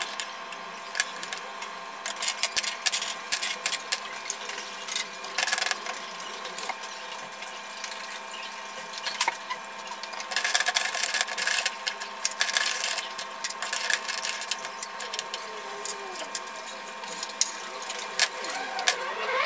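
Water boiling hard in a saucepan on an electric hob: dense, irregular crackling and popping of bubbles over a steady hum, busiest about two to six seconds in and again around halfway.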